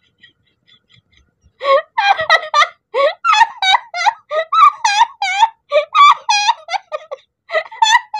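A woman laughing loudly in a long run of high-pitched peals, starting about a second and a half in.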